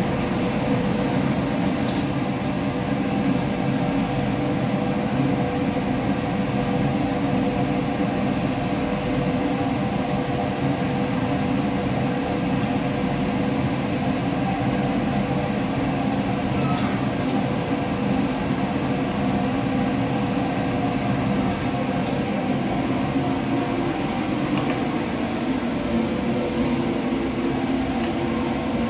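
Steady drone with a humming tone from a commercial kitchen's extractor hood fan and lit gas wok burners, with a few faint clinks of a ladle and bowl.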